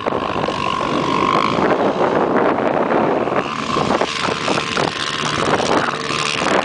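Quad bike (ATV) engines running and whining on the sand, under loud wind noise on the microphone. The engine tone comes through for the first second or so and again from about three and a half seconds in.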